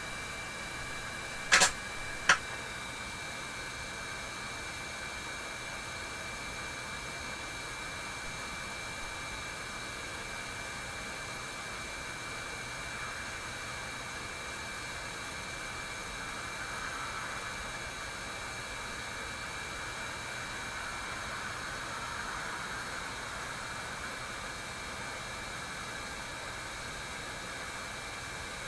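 Steady airy hiss of a small blower with a faint high whine, and two sharp clicks about one and a half and two and a half seconds in.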